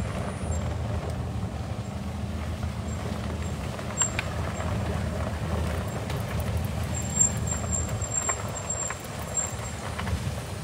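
Small vehicle driving slowly over a rough dirt road: a steady low rumble of tyres and body, with a few brief clicks and squeaks from the vehicle on the bumps of this squeaky stretch.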